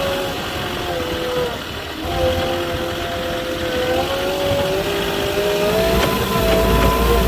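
Moffett truck-mounted forklift engine running under load, its pitch stepping down and up as the machine is driven and worked, then revving higher toward the end.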